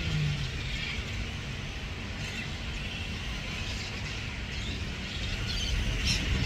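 A roosting colony of flying foxes chattering: a constant mass of shrill squabbling calls from many bats, with one sharper shriek near the end, over a low background rumble.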